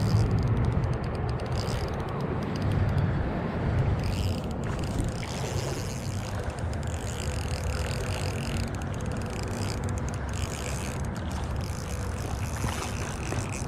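Wind buffeting the microphone: a steady low rumble with a fluctuating hiss above it.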